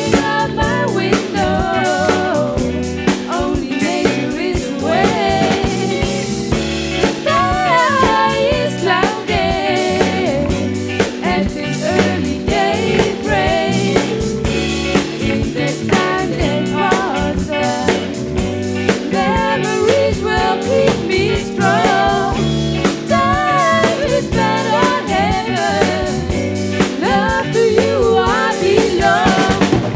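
Rock band playing live, with a singer over drum kit, guitars and bass, on an old analog live recording.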